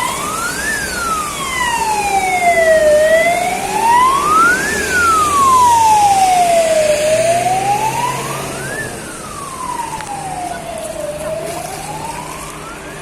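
Emergency vehicle siren wailing, its pitch rising and falling slowly about once every four seconds, growing somewhat quieter over the last few seconds.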